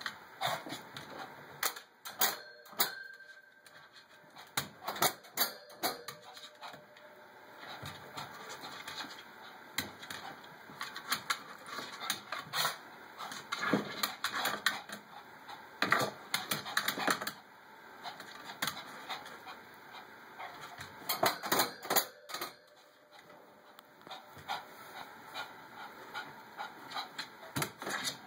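A shih tzu's claws clicking and tapping on a wooden dresser top as it stands on its hind legs and paws about. The taps come in irregular clusters with short pauses between them.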